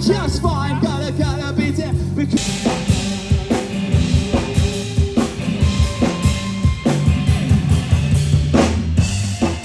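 Live band music: a sung line at first, then about two seconds in a drum kit comes in with a steady beat and cymbals under the band.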